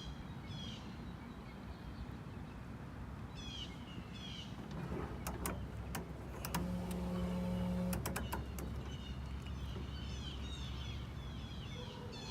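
Small birds chirping in short, quick falling calls, in several bouts. Midway come a few sharp clicks and a steady mechanical hum that lasts about a second and a half.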